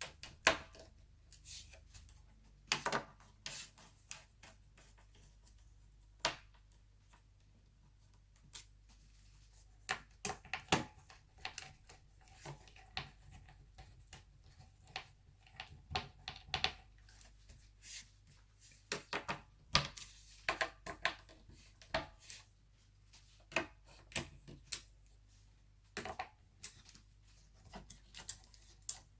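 Irregular light clicks and taps of a small screwdriver and screws as screws are driven back into the laptop's motherboard and chassis, some in quick clusters and others spaced a few seconds apart.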